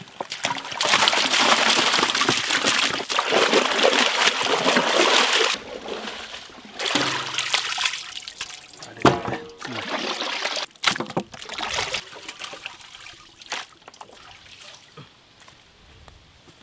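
Water pouring and splashing for about five seconds, then scattered knocks and clatter.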